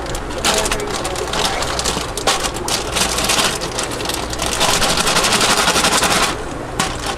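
A wet plastic bag being squeezed and worked by hand, a dense crackling rustle that is loudest in the middle and eases near the end, over a low steady hum.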